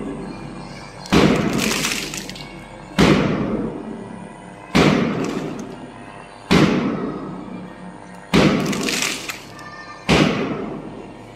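A loud ringing crash struck six times at an even beat, about every 1.8 seconds, each dying away before the next.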